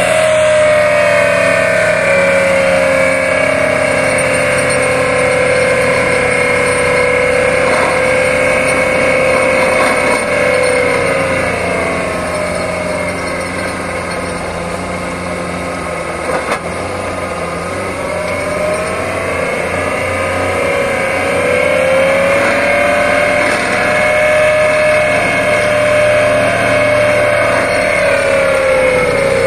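Excavator-mounted vibratory hammer driving a steel sheet pile, with the excavator's hydraulics: a loud, steady mechanical drone topped by a whine. The pitch sags and the sound eases a little around the middle, climbs back a few seconds later, and dips again near the end, with one short knock about halfway through.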